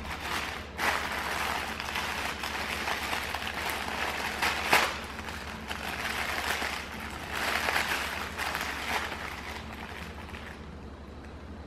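Plastic mailer bag crinkling and rustling as hands pull it open and draw out a plush toy, in uneven swells with one sharper crackle about halfway through, dying down near the end.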